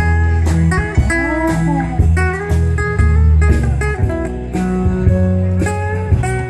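Live country band playing an instrumental break of a slow ballad: a lead acoustic guitar solo of plucked single notes over bass and drums.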